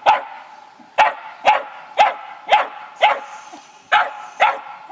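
Small black-and-white dog barking repeatedly, about eight short sharp barks at roughly two a second with a brief pause a little past the middle. It is play barking, given from a play bow at a person's feet to get them to play.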